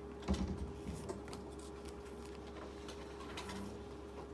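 Quiet classroom room tone: a steady low hum with a few soft knocks and rustles, the loudest about a third of a second in.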